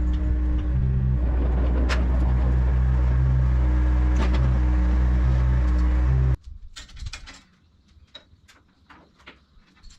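Heavy equipment engine running steadily at a constant speed. It cuts off abruptly about six seconds in, leaving a few faint clicks and knocks.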